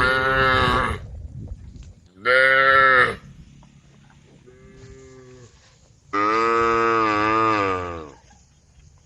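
Cows mooing: four calls in a row. The second is loud and short, the third fainter, and the last is the longest, with a wavering pitch.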